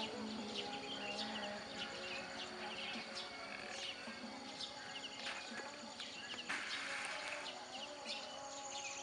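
Morning birdsong: many small birds chirping in short, scattered calls, with a brief hiss about two-thirds of the way through.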